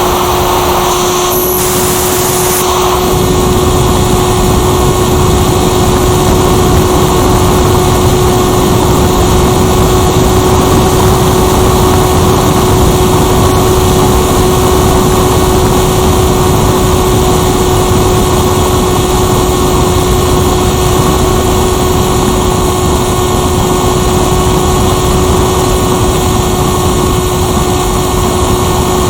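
Model motor glider's motor and propeller running at steady throttle, heard from on board: a constant whine over a loud rush of wind on the microphone.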